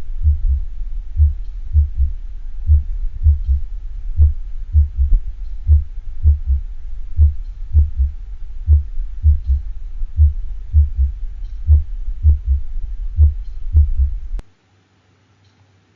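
Heart sound simulator playing a horse's heart at a slow rate, about 40 beats a minute, each beat a group of three low thuds: S1, S2 and an added early-diastolic S3 sound, the kind taken as normal in horses. A steady low hum runs under the beats, and the playback cuts off about a second and a half before the end.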